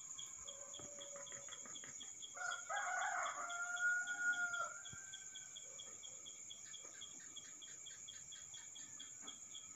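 A rooster crowing once for about two seconds, starting about two and a half seconds in, over the steady trilling and pulsed chirping of crickets.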